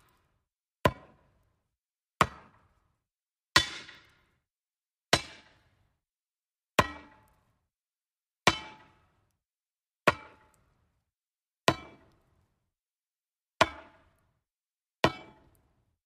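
Metal hammer striking wood: ten single, evenly paced blows about a second and a half apart, each a sharp knock with a short ring that dies away quickly.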